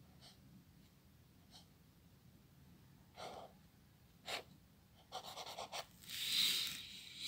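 Quiet handling sounds: a few soft breaths, a quick run of short scratchy rustles of paper a little after five seconds, and a louder breathy hiss around six seconds.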